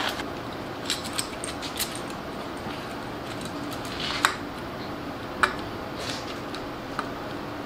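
Light metallic clinks and clicks of a steel timing chain and cam gear being handled and fitted by hand onto the front of a Gen 4 LS V8. A few separate clicks are scattered through, the loudest about four seconds in, over a steady low background hum.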